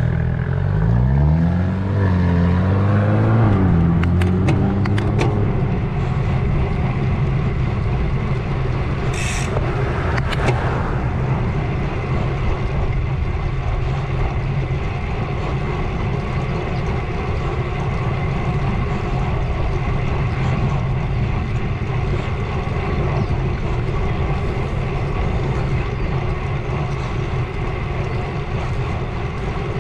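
A road bicycle rolling along, with steady tyre and wind noise on a handlebar-mounted action camera. In the first few seconds a motor vehicle's engine rises and falls in pitch as it accelerates nearby. A few sharp clicks come about four seconds in, and short high squeaks come near nine and ten seconds.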